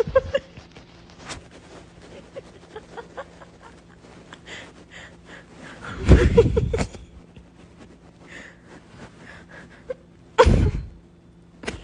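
An elderly woman snoring in her sleep: two loud snores, the first about six seconds in and lasting nearly a second, the second shorter near the end.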